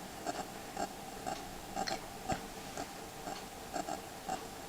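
Faint, regular mechanical ticking, about two ticks a second, with one sharper click a little past the middle.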